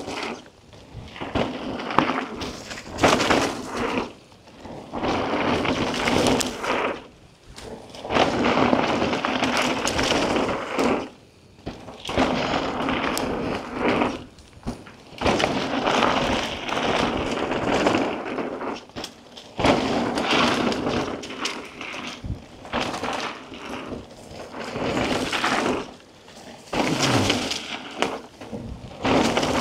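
Mountain bikes ridden fast down a dirt jump trail, heard from the following rider's bike: knobby tyres rolling over dirt and the bike rattling. The rolling noise cuts out briefly several times as the bikes leave the ground over jumps, then picks up again.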